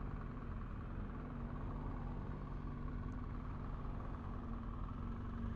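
BMW R1200GS boxer-twin motorcycle engine running at low speed in slow town traffic, a low, steady hum.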